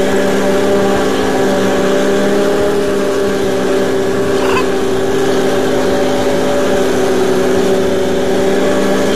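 Ride-on lawn mower's engine running at a steady speed while mowing grass, with an even, unchanging pitch.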